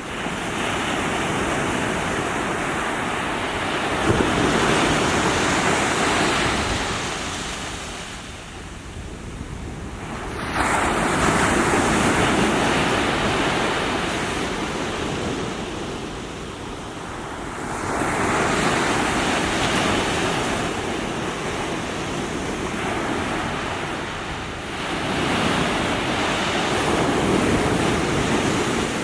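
Small sea waves breaking on the shore, the surf swelling and falling back in slow surges about every six or seven seconds.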